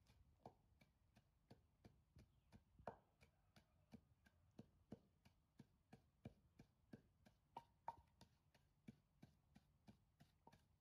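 Wooden pestle pounding in a wooden mortar, grinding chilli salt: faint, even knocks at about three a second.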